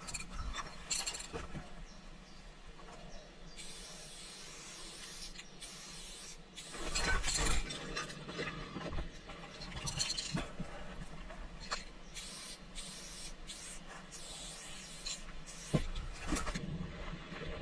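Aerosol spray paint can hissing in repeated bursts of varying length as graffiti tags are sprayed, with short knocks and handling noise in between.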